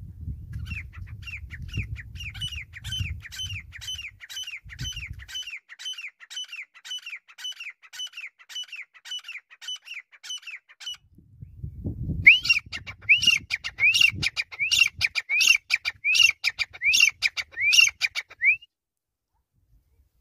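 Grey francolin calling: a long run of quick rise-and-fall notes repeated about twice a second, then a short pause and a second, louder run. A low rumble sits under the first few seconds and the start of the second run.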